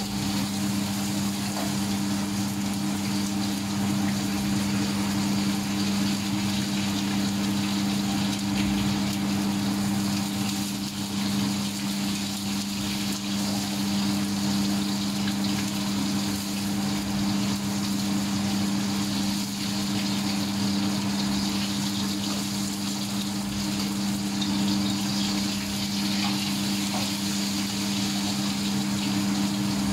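Egg frying in hot oil in a pan over a gas burner, a steady sizzle, over a constant low machine hum.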